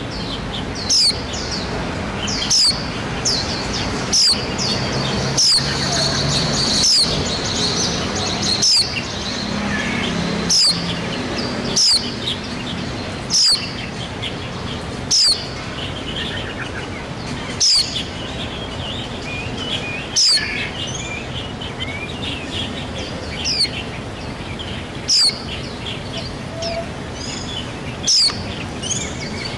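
White-eye (pleci) calling: a high, thin note repeated every one to three seconds, each one short and sweeping downward. Softer bird twittering continues behind it.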